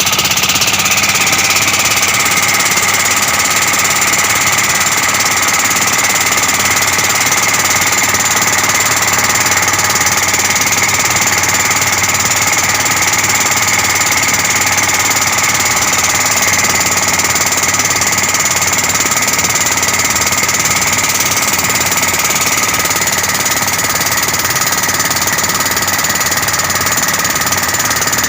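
Mitsubishi 4D32 four-cylinder diesel boat engine running steadily and loud. A high whine over the engine noise drops slightly in pitch in the first couple of seconds, then holds.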